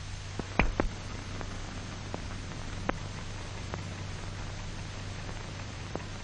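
Surface noise of an old film soundtrack: a steady hiss and low hum with a few scattered, irregular clicks and pops.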